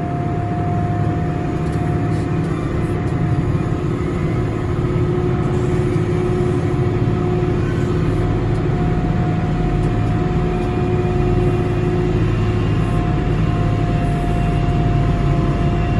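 Boeing 787 Dreamliner during pushback: a steady low rumble with a constant high whine running through it.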